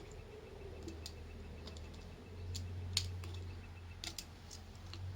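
A blade cutting through an old rubber CV axle boot: scattered sharp clicks and small snaps as it works through the rubber, over a low steady hum.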